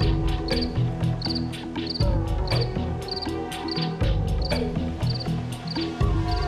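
Regular high-pitched insect chirping, about one short chirp every 0.6 s, over a dark music score of sustained low notes that change every two seconds, with light ticking percussion.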